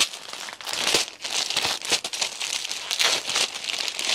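Crinkling and rustling of clothing bundles being handled and shuffled, with many small sharp crackles.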